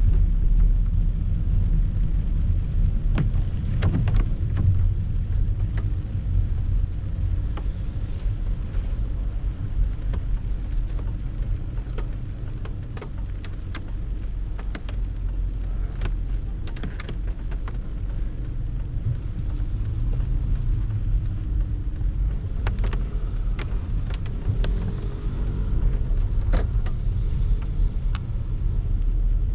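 Rain shower on a city street with car traffic passing: a steady heavy low rumble under a hiss, with many scattered sharp taps.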